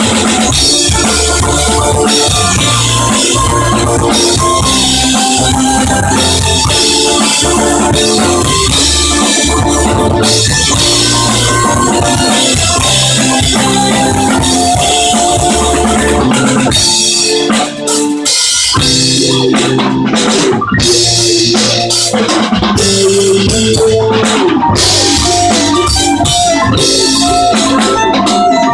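Live band playing, with drum kit, bass, violin and electric guitar, in a loud, distorted recording. The bass and drums drop out briefly about 18 seconds in.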